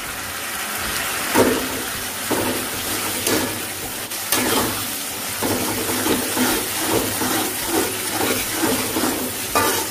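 Chili balado paste sizzling in a metal wok while a metal spatula stirs it, scraping across the pan about once or twice a second.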